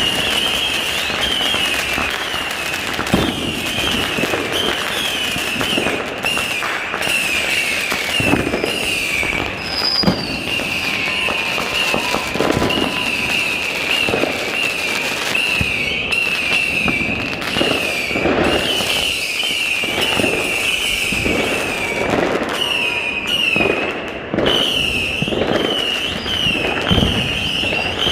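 New Year fireworks going off, with frequent sharp bangs over a near-continuous high, warbling whistle.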